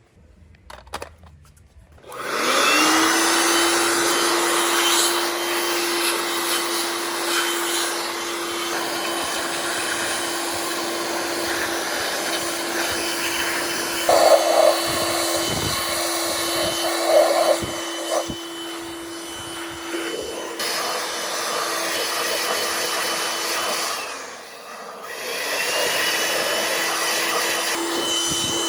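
A small electric fan motor spins up about two seconds in and runs with a steady whine over a rush of air, stops briefly near the end, then spins up again.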